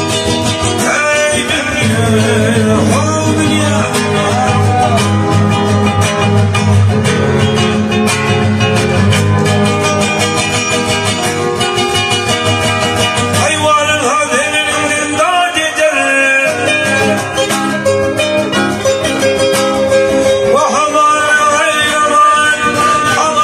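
A man singing, accompanied by two acoustic guitars.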